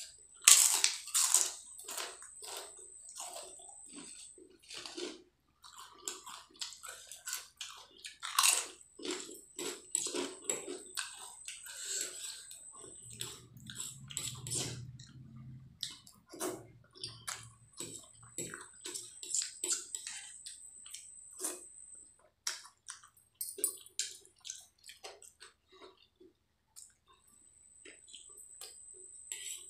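Close-miked crunching and chewing of crisp fried potato chips, loudest in the first couple of seconds and again about eight seconds in, with wet mouth sounds. This thins out into softer chewing and light clicks.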